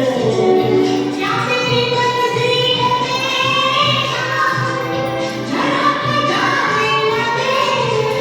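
Music: a song with a group of voices singing held notes over a steady beat.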